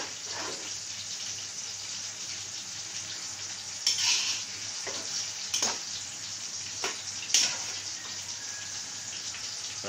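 Broth boiling with a steady bubbling hiss in an aluminium pot while a metal ladle stirs in glass noodles and vegetables. Several sharp clinks of the ladle against the pot, the loudest about four and seven seconds in.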